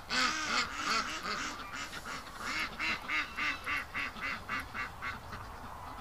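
Domestic ducks quacking in a rapid series, about three quacks a second, dying away about five seconds in.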